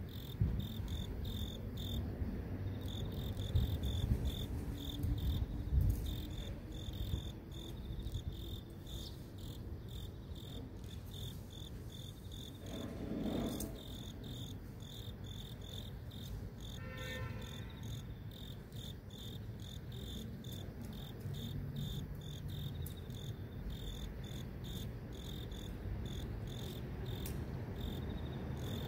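Grass insects, crickets, chirping in a steady, evenly pulsed high trill, over a low rumble of city traffic.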